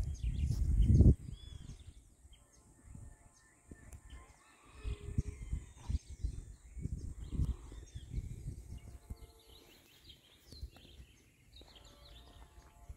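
Small birds chirping and calling in short, scattered notes, over irregular low rumbles that are loudest in the first second and come back in the middle.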